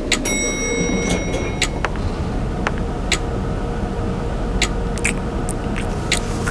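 Lift cabin in motion: a steady low mechanical hum with scattered sharp clicks. A high electronic beep sounds shortly after the start and is held for about a second and a half.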